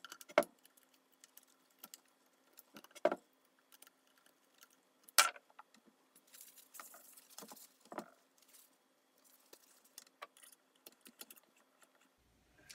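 Scattered metal clicks and knocks of screwdrivers and screws against an electric motor's end bell as it is screwed back together, with a brief scrape about halfway through. The sharpest click comes about five seconds in.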